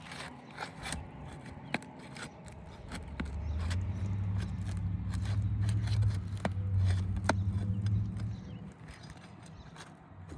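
Short scrapes and clicks of a metal tool working under asphalt shingles to free roofing nails. A louder low rumble with a steady hum runs from about three seconds in to about eight and a half.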